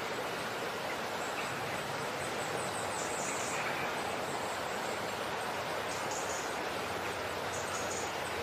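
A steady, even hiss with no distinct knocks or tones.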